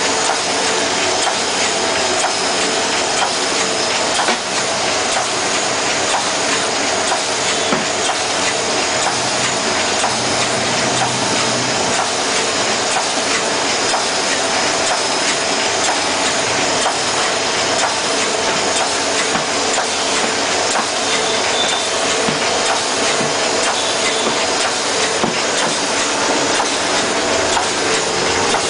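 Model 820 envelope-making machine running: a steady, dense mechanical clatter of many fast, closely spaced ticks over a continuous whirr.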